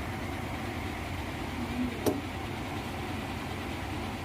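A single sharp crack about two seconds in, the stiff knee joint popping under a chiropractic adjustment, over a steady background hum.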